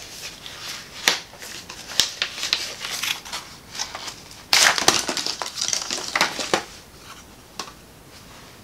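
Crinkling and rustling of packaging with sharp clicks and snaps as an eyeshadow palette is unwrapped and opened, the loudest burst of crinkling about halfway through.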